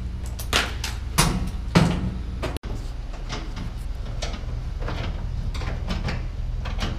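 Electrical installation work on a transformer and a machine's control cabinet: three loud sharp knocks of tools and sheet-metal panels in the first two seconds, then lighter clicks and clatter, over a steady low hum.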